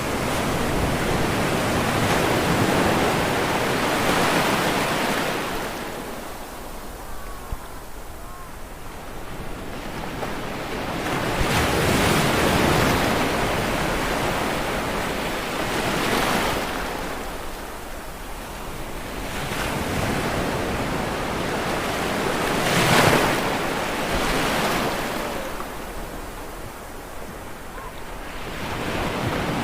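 Ocean waves breaking and washing up on a shore, swelling and falling away every few seconds, with one louder, sharper break about three-quarters of the way through.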